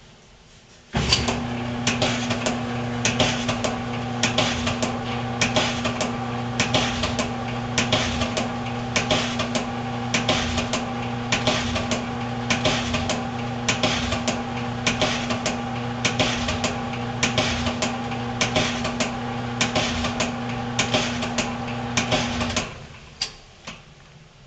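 GE stacked dryer running: a steady motor hum with a persistent, irregular clicking or knocking of two or three clicks a second, an unusual noise of unknown cause. It starts abruptly about a second in and shuts off suddenly near the end, with a couple of last clicks.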